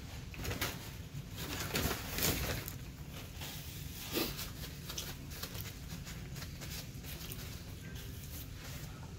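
Close-up chewing and mouth sounds of someone eating French fries: irregular smacks and clicks, with a few louder ones in the first half.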